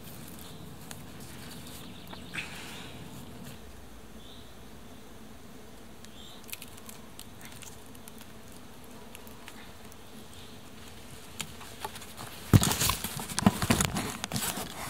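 Faint rustling and small clicks of paracord being worked around wooden poles, then, about twelve seconds in, a sudden loud burst of crashing, crunching and snapping in dry leaves and sticks, lasting a couple of seconds.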